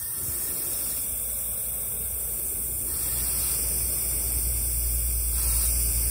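Compressed air hissing steadily from a shop air blow gun as it pressurises a removed Bentley Continental Flying Spur front air strut in a leak test, getting louder about halfway through, with a low rumble underneath. The strut leaks air past a failed rubber seal.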